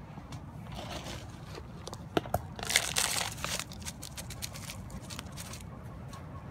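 A thin plastic cup scooped through loose potting soil in a plastic tub: crunching, crackling soil and crinkling plastic, loudest in a burst about three seconds in.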